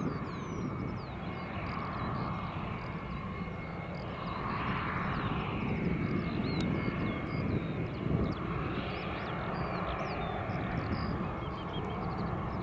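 Boeing 747-400 jet engines running at low thrust as the jumbo taxis and turns, a steady rumble with a thin, steady high whine. Short high chirps sound throughout over the engine noise.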